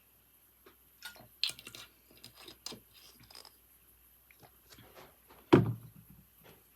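Computer keyboard typing: a quick run of key clicks, then a few scattered taps. About five and a half seconds in comes one much louder, deeper thump, the loudest sound here.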